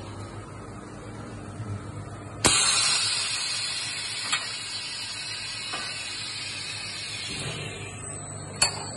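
Bottle-filling machine running with a steady low hum, then a loud hiss starts suddenly about two and a half seconds in as the filling heads open over the glass bottles, fading slowly over the next several seconds. A sharp click comes near the end.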